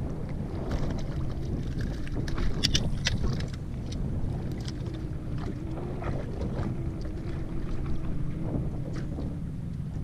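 Wind buffeting the microphone and choppy water slapping a drifting fishing boat's hull, with a faint steady hum underneath. A brief cluster of sharp clicks comes about two and a half seconds in.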